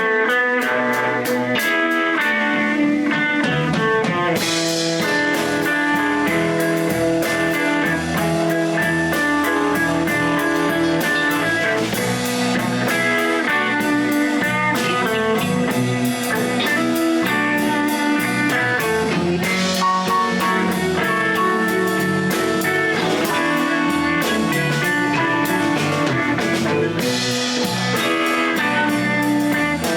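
A blues band playing live, with the electric guitar out front over a drum kit. The cymbals and drums come in strongly about four seconds in.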